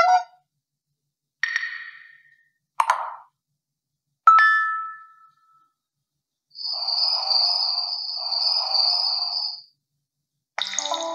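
A string of separate short sound effects with dead silence between them. First come several single dings and a knock about a second or so apart. Then a longer ringing tone in two parts lasts about three seconds, and one more short sound comes near the end.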